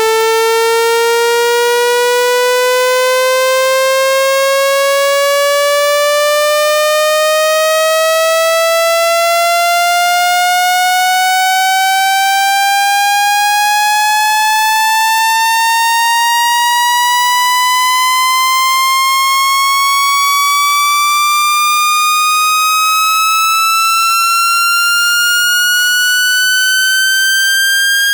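Electronic water-ejection tone for clearing a phone speaker: one loud, buzzy tone that glides slowly and evenly upward in pitch, climbing about two octaves.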